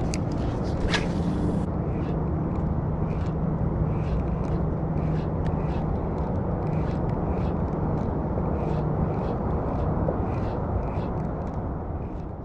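Steady rumbling background noise with a faint low hum, over which a spinning reel ticks softly about twice a second as its handle is cranked through a lure retrieve.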